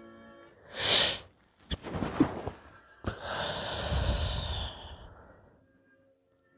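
A woman's stifled sneezing fit with heavy, sniffly breathing: a sharp breathy burst about a second in, a short clipped stifled burst around two seconds, then a long breathy exhale that fades out about five and a half seconds in.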